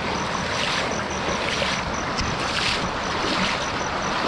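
Fast river water rushing steadily below a dam, the current running strong, with a soft rise and fall about once a second.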